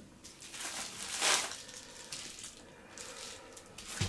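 Packaging being handled: rustling and crinkling in short bursts, the loudest a little over a second in, with a light knock at the start and another near the end.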